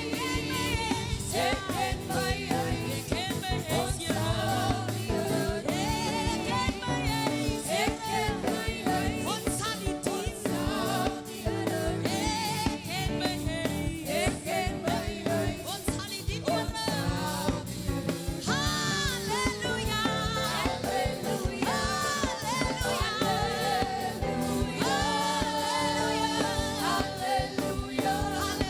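Upbeat gospel praise song: a band with drums playing a steady beat while singers carry the melody.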